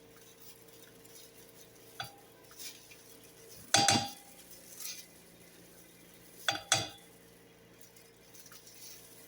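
Kitchen dishes and utensils clinking and clattering as a bowl of ingredients is handled: a small knock about two seconds in, a louder clatter about four seconds in, and two more close together near seven seconds, over a faint steady hum.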